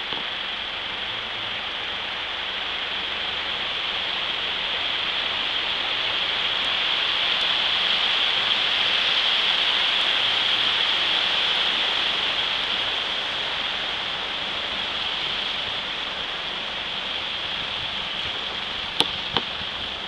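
Water rushing and splashing around a vehicle's wheels as it drives slowly through a flooded creek crossing. The noise swells to its loudest midway through the crossing and then eases, with two sharp knocks near the end.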